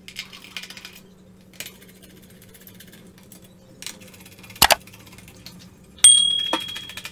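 Light clicks of laptop base-cover screws being worked loose with a small screwdriver, with a sharper click about two-thirds through. Near the end a loose screw drops onto a hard surface with a clink that rings briefly on a high tone.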